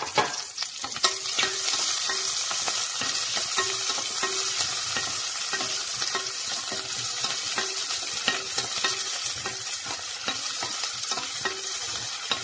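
Sliced onions sizzling as they fry in hot oil and ghee in a stainless steel pot. A spatula stirs them, scraping and knocking against the metal over and over, with a sharp knock right at the start.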